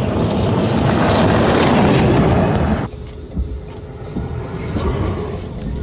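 Heavy wind and rain noise on an outdoor microphone during a tornado. About three seconds in, it cuts abruptly to the inside of a vehicle: quieter rumbling vehicle noise with a faint steady hum and rain on the windshield.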